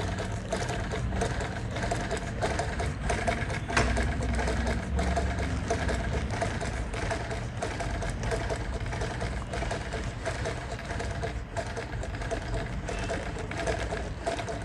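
Freshly overhauled treadle sewing machine stitching through cloth, running steadily with an even, rapid mechanical rhythm: a test run after cleaning, painting and reassembly.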